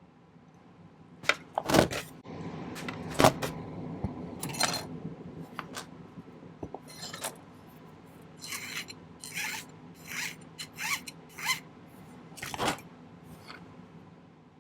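Hand file scraping sterling silver wire in a run of separate strokes, roughly one a second, after a few sharp clicks and knocks in the first few seconds.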